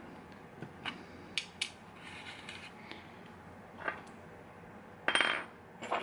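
Small metal clicks and taps from a lock and picking tools being handled while the lock is taken apart, with a short, louder metallic rattle-scrape about five seconds in.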